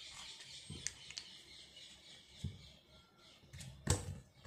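Fingers picking at and peeling the seal off the mouth of a plastic capsule bottle: faint scratching and small clicks, with one sharp click about four seconds in.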